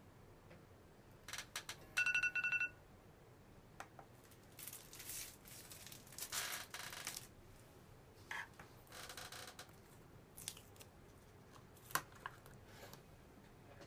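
An iPhone timer alarm goes off about two seconds in, a short burst of rapid beeping that signals the instant noodles' wait time is up. After it come rustling and crinkling as the cup's paper lid is handled and peeled back, with a few sharp clicks.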